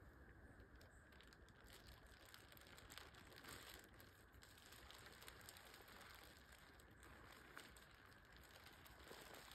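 Faint rustling and crinkling of a black plastic trash bag as it is handled and pulled back off a wire cage trap, with soft irregular crackles.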